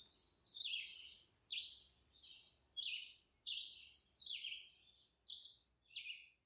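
Small birds chirping: a run of short, high chirps that slide downward in pitch, about one or two a second, fading away toward the end.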